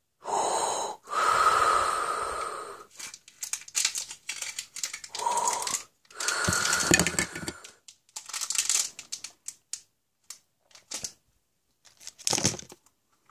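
Hollow plastic surprise eggs and a small plastic bag being handled: crinkling plastic and clacking egg shells in irregular bursts of a second or two with short gaps.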